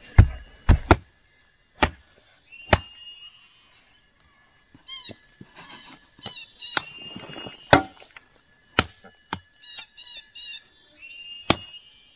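Sharp, separate blows of a tool striking wood, coming irregularly about one to three seconds apart. Between them a bird calls in short, quick chirps in groups of two or three.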